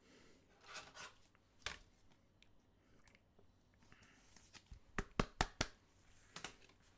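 Trading cards and plastic sleeves being handled on a table: soft rustling and sliding, a single tap, then four quick sharp taps about five seconds in.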